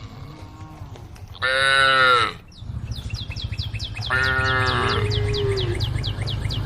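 Cattle mooing: two short calls, a loud one about one and a half seconds in and a second, falling one about four seconds in. From the middle on, a quick run of high chirps, about five a second, and a steady low rumble sound along with them.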